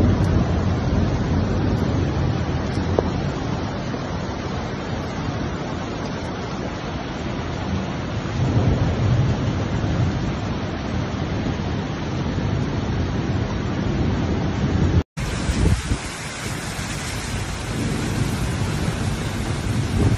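Flash-flood water rushing down a wadi, with wind rumbling on the phone's microphone: a steady, noisy rush. About fifteen seconds in it cuts off for an instant and switches to rain falling on a wet street.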